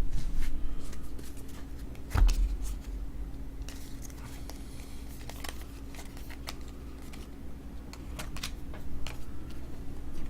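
Trading cards and their packaging being handled on a table: scattered light clicks and rustles, with one louder knock about two seconds in.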